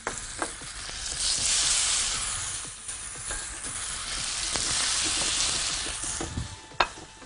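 Beef steaks sizzling on a hot, oiled ridged grill pan as they are laid down one after another. The sizzle swells about a second in and again midway as new steaks hit the pan, and there is a sharp click near the end.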